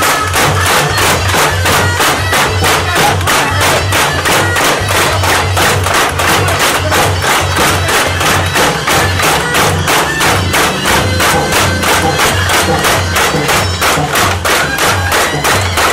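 Traditional Burmese street band playing loudly: a shrill reed-pipe melody over fast, driving drumbeats and clashing hand cymbals, about four or five strokes a second.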